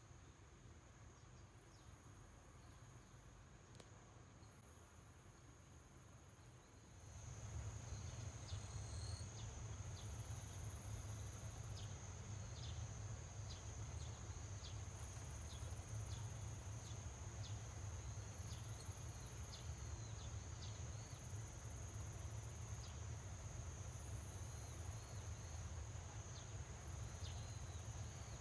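Faint insects trilling and buzzing, the very high trills pulsing on and off every second or two. About seven seconds in, a steady high whine and a low rumble join, with a scatter of short faint chirps.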